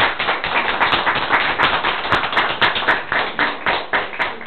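Audience applauding, a dense run of many hand claps.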